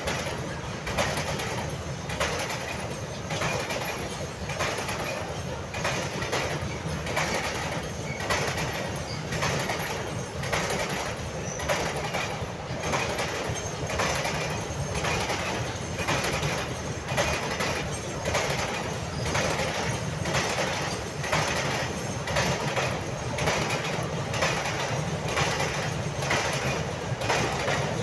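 Container freight train rolling past: a continuous rumble of the loaded flat wagons, with a regular clickety-clack of the wheels passing over rail joints.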